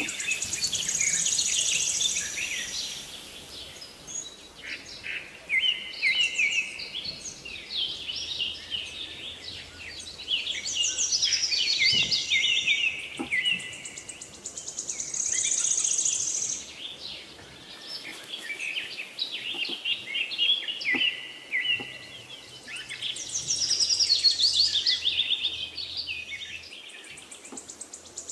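Birds chirping and singing, many quick whistled notes sliding up and down, coming and going in waves.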